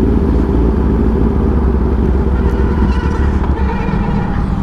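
Kawasaki Ninja ZX-10R inline-four with an SC Project full titanium exhaust system running steadily, a deep, even exhaust drone.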